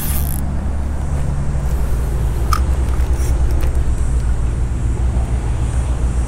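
Wind buffeting the microphone: a steady low rumble that flutters, with a brief rustle right at the start and a few faint ticks.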